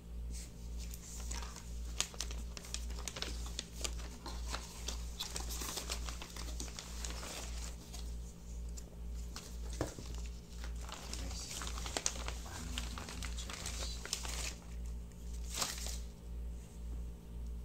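Plastic wrapping and a small cardboard box crinkling and rustling as they are handled, with scattered clicks and taps from small parts. A low hum pulsing about twice a second runs underneath.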